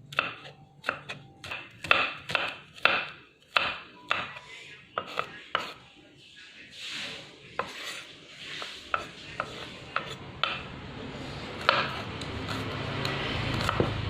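Kitchen knife chopping on a cutting board: a run of quick, irregular cuts, then softer scraping with scattered taps.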